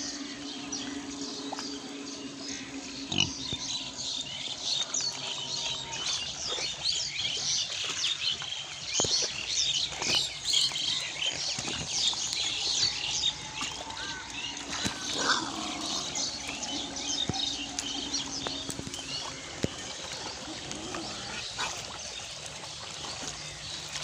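A herd of pigs grunting as they wade and root in a muddy pond, with a continual crackle of splashing, sloshing water and mud.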